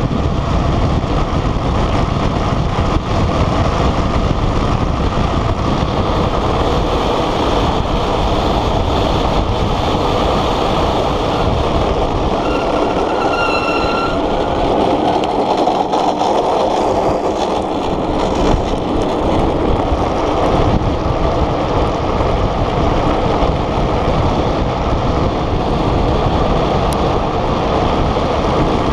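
Wind rushing over the microphone and road noise from a gravity-powered speed trike rolling fast downhill on rough asphalt, with a brief high-pitched squeal about halfway through.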